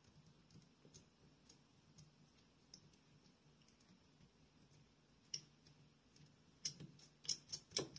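Faint scattered clicks and ticks of small plastic and metal parts being handled: a nut being fitted onto the bolt that holds a solder-wire spool on a soldering gun. Several sharper clicks come close together over the last three seconds.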